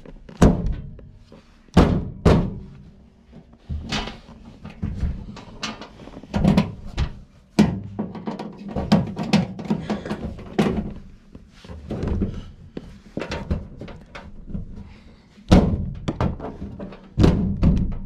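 Sheet-metal furnace access panel being fitted and pressed back into place by hand: repeated hollow metal thunks and knocks, several loud ones near the start and near the end, over a steady low hum.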